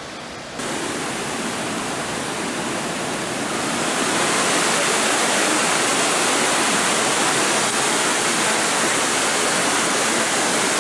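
Hidden Falls, a waterfall cascading down a rock face, making a loud, steady rush of falling water. The rush steps up about half a second in and grows louder again around four seconds in.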